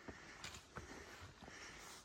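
Faint footsteps of a hiker walking on a trail, about two steps a second.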